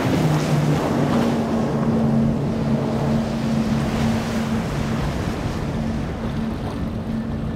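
Motorboat engines running in a steady drone that dips slightly in pitch at the start, over wind on the microphone and rushing surf.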